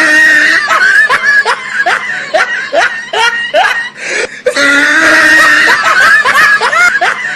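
Loud, rapid laughter: a run of short rising 'ha' sounds, two to three a second, broken by a brief pause about four seconds in.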